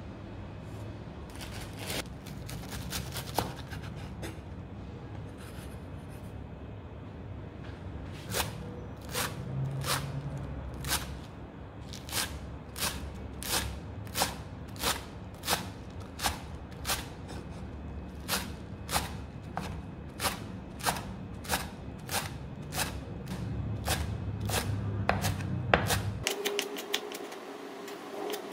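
Kitchen knife chopping chives on a wooden cutting board: sharp knocks of the blade on the board, scattered at first, then a steady rhythm of about two a second, quickening near the end.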